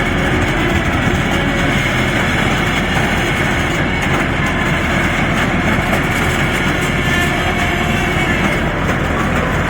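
Kubota diesel engine of a 7.5-ton crawler excavator running steadily as the machine is driven slowly on its tracks.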